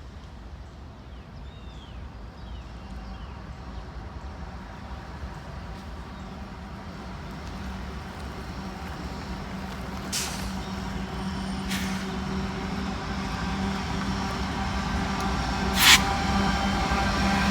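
Diesel locomotive approaching, its engine drone growing steadily louder, with three short sharp bursts of noise in the second half. Faint bird chirps come in the first few seconds.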